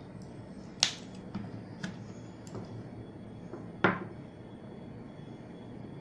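Two sharp clicks about three seconds apart, with a few fainter ticks between, from small cosmetic items being handled; the second comes as a round compact mirror is picked up and held open.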